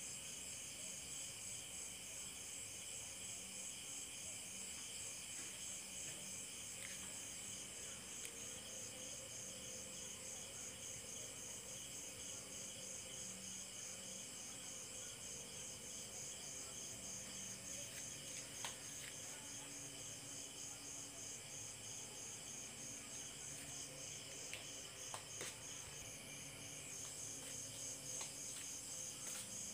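Crickets chirping at night in a steady, evenly pulsing high-pitched trill, faint, with a couple of soft ticks later on.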